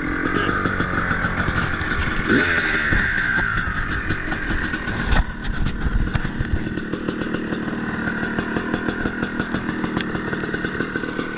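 Freshly rebuilt 2006 KTM 300 XC-W's single-cylinder two-stroke engine running steadily on its first heat cycle after a new crank, piston and rings, with a sharp knock about five seconds in.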